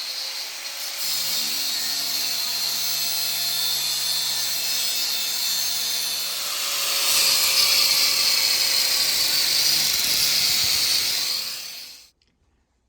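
Angle grinder running against rusted steel of the car's frame rail. It gets louder about seven seconds in and stops near the end.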